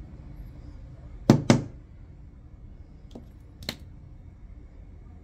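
Workbench handling during reassembly of a Glock G19 Gen3 trigger: two sharp knocks in quick succession about a second in, then two lighter clicks a couple of seconds later.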